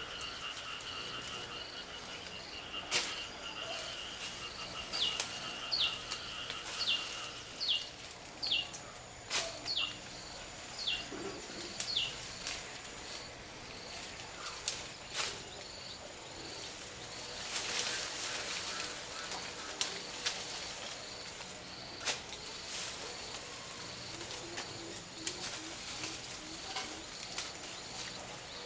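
Birds and insects calling outdoors: a steady high pulsing trill for the first several seconds, then a run of short, falling whistled calls repeated about every half second, over a faint regular high chirp. Scattered sharp clicks and snaps and a brief burst of rustling about two-thirds through.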